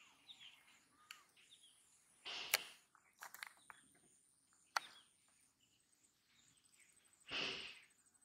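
Faint handling noise from fishing tackle worked by hand: a short rustle about two seconds in, a few sharp clicks over the next few seconds, and a louder rustle near the end, with faint bird chirps behind.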